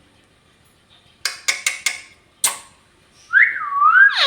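A few sharp clicks, then a pet parrot whistling, about three seconds in, in wavering glides that rise and fall.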